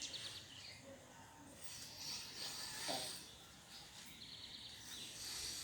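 A woman snoring in her sleep: slow, breathy snores that swell and fade, the loudest about three seconds in.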